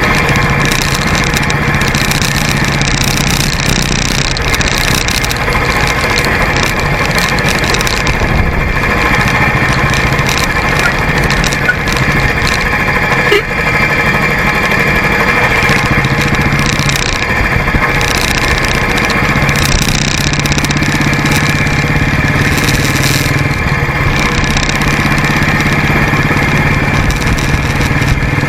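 Motorcycle engine running steadily while riding, picked up close to the front wheel, with wind and tyre noise over the microphone. A single brief knock comes about halfway through.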